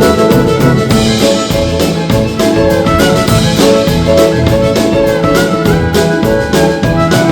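Live roots band music: fiddle, piano and drums playing an upbeat tune over a steady beat.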